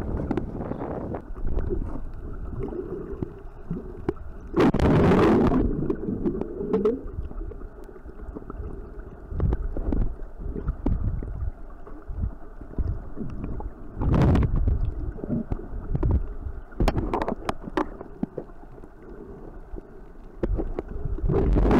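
Muffled underwater sound from a camera just below the surface: sloshing, gurgling water broken by several loud rushes of bubbles, the longest about five seconds in and another near the end, where a Galapagos sea lion blows bubbles at the camera.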